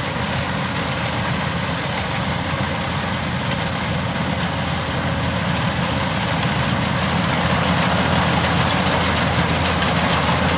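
Kubota DC-105X rice combine harvester's diesel engine running steadily as the machine cuts rice, growing louder as it comes closer.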